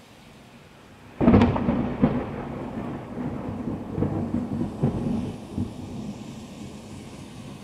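A thunderclap over steady heavy rain. About a second in comes a sudden loud crack, followed by a rolling rumble with several further cracks that slowly dies away, while the rain's hiss carries on underneath.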